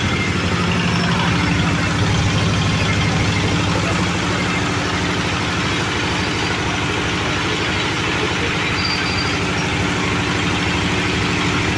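Oil palm loose-fruit thresher machine and its engine running steadily on a test run, with a fast, even engine beat.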